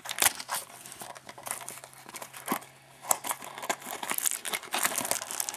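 Packaging of a trading-card pack being worked open by hand: plastic wrapper crinkling and cardboard being pried and torn. It comes as irregular crackles and small tearing sounds, on a box that is hard to get into.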